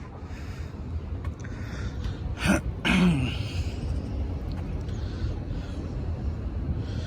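A person clears their throat with two short, sharp coughs about half a second apart, a little before the middle, over a steady low rumble of background noise.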